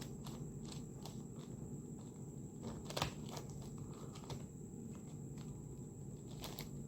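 Faint plastic clicks and scrapes of a 7x7 Rubik's cube as three of its layers are turned together, with the loudest click about three seconds in.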